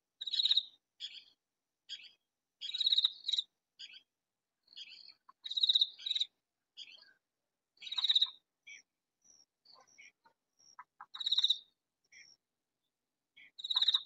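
A katydid calling loudly: short, high-pitched pulsed calls repeated about every two to three seconds, with fainter short chirps between them.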